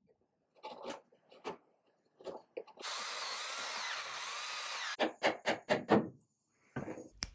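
A few scattered wooden knocks, then a drill boring into a small wooden block for about two seconds. It stops, and about five quick blows from a rubber mallet follow, tapping a dowelled chair leg.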